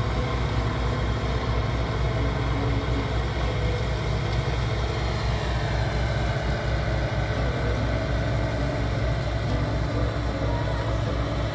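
Engines of potato-harvesting machinery running steadily, a continuous low drone.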